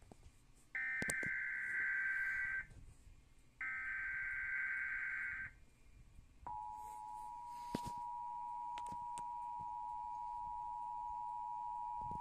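Emergency Alert System SAME header: two harsh digital data bursts, each about two seconds long and a second apart. The steady two-tone EAS attention signal then starts about six and a half seconds in and holds, marking the start of an emergency alert.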